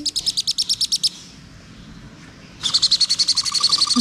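Parrot chick, which the owner takes for a sun conure, peeping in a fast, high-pitched series of about ten chirps a second. The peeping stops about a second in, pauses for about a second and a half, then starts again.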